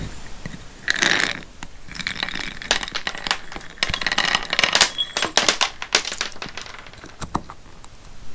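Shelled peanuts poured from a small metal cup into a turned wooden acorn-shaped cup: a brief rattling rush about a second in, then a run of quick clicks and taps as peanuts drop against the wood and bounce onto the wooden tabletop.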